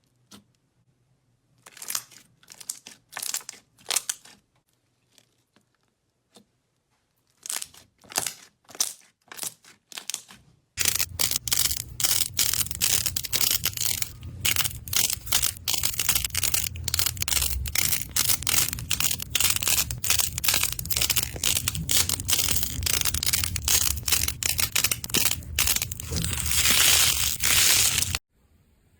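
Slime being pressed and squeezed by hand, making crackling, crinkly pops. These are scattered for the first ten seconds or so, then become dense and continuous, and stop abruptly shortly before the end.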